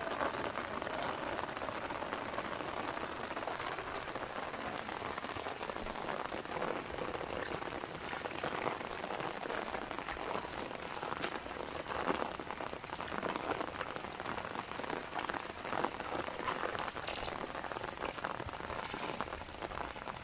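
Steady rain falling on shallow floodwater and grass in a paddy field, a continuous patter with scattered sharper drop hits.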